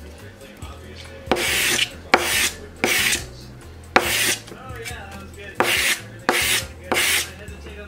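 Plastic vinyl-wrap squeegee scraped across a sheet of black sandpaper in seven short rasping strokes, wearing its edge down to smooth it.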